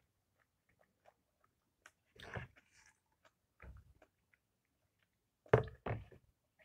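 Faint wet clicks of a mouth chewing soft fresh fig, then a few handling knocks and thumps as fruit is picked up from a bowl, the loudest two close together about five and a half seconds in.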